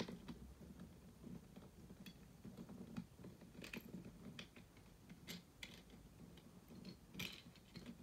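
Faint, scattered clicks and small rattles of the plastic pieces of a disassembled 2x2 Rubik's cube being handled and fitted together, wedge pieces pressed into place around the core.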